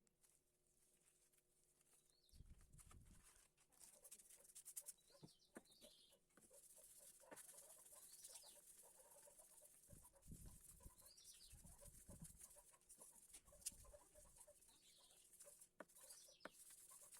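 Near silence with faint bird chirps every few seconds, plus a few light clicks and low thumps.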